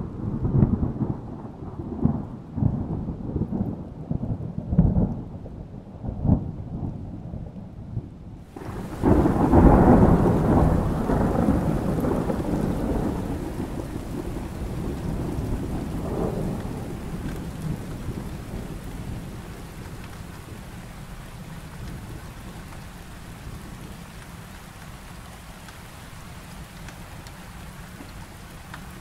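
Thunderstorm: thunder crackles and rumbles in a series of sharp low claps for the first eight seconds or so. Then a steady hiss of heavy rain sets in suddenly with a loud roll of thunder, which slowly dies away under the rain.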